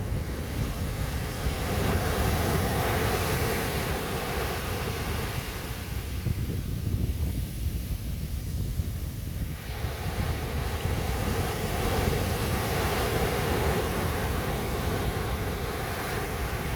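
Sea waves breaking and washing up a sandy beach, two swells of surf hiss with a quieter lull between them, over a steady low rumble of wind buffeting the microphone.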